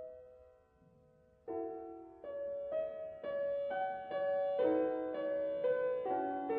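Slow, gentle piano music. The notes die away to a near-quiet pause about half a second in, then come back about a second and a half in and build into fuller chords.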